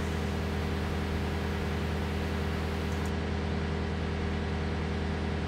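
John Deere skid steer's engine idling: a steady, unchanging hum.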